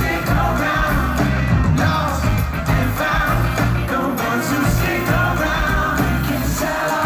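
Live pop-rock band playing with several singers singing into microphones over a steady beat and keyboards, heard from among the audience.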